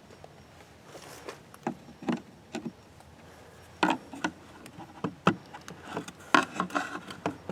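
Irregular sharp clicks, knocks and rattles, about a dozen, busier in the second half, as the RV refrigerator's outside access panel is worked open by hand.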